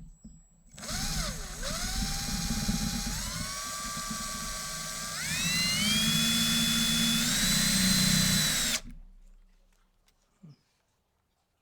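Electric drill running: its motor whine dips briefly, then climbs higher in several steps as the trigger is squeezed. It stops suddenly about nine seconds in.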